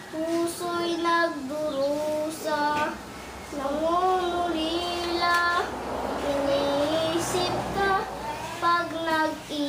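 A young boy singing unaccompanied, holding notes that slide up and down in pitch, with short pauses between phrases.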